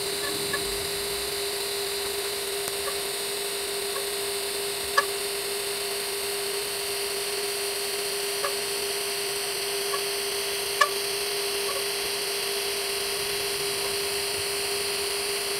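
TIG welding arc burning: a steady buzzing hum over a hiss, with faint scattered ticks and two sharper ticks about five and eleven seconds in.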